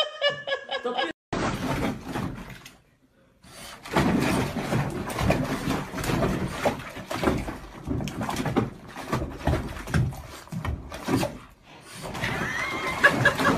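Water splashing and knocking against a bathtub as a small dog moves through bubble bath, then high whimpering cries from the dog near the end.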